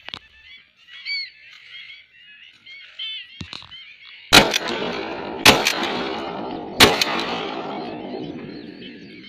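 A large flock of waterbirds calling, with three shotgun shots about four seconds in, a second or so apart, each with a long rolling echo that fades away.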